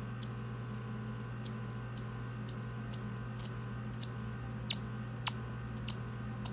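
Steady electric hum of a microdermabrasion machine's vacuum pump running, with faint scattered clicks on top, two of them a little louder near the end.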